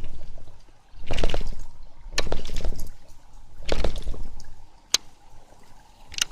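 Water splashing and sloshing in swells about a second and a half apart, with one sharp click near the end.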